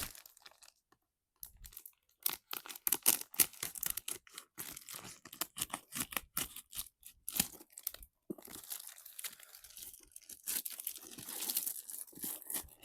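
Toy packaging being torn open and handled: repeated crinkling and tearing with sharp clicks, starting after a brief pause near the start.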